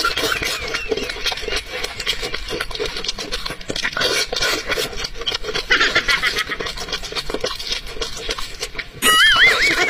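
Close-miked mukbang eating: wet chewing and smacking, with hands tearing apart braised chicken, as a dense run of small crackles and clicks. About nine seconds in, a louder wavering high-pitched squeal starts.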